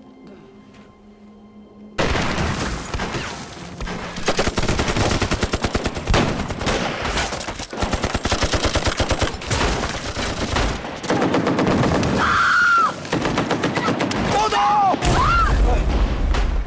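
Staged film battle gunfire: after a quiet start, heavy rapid gunfire breaks out suddenly about two seconds in, with a steady stream of machine-gun and rifle shots. Near the end come shouts and a heavy low explosion boom.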